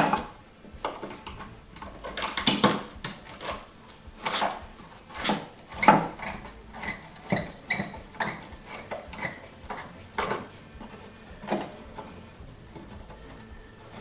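Irregular metallic clinks and knocks of tools and metal parts being handled while a snowmobile is taken apart, some with a short ring. They come thick in the first half and thin out toward the end.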